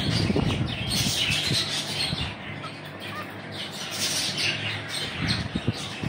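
Caged budgerigars chattering: a fast, scratchy run of squawks and chirps that swells in waves, busiest in the first second or so and again around four seconds in.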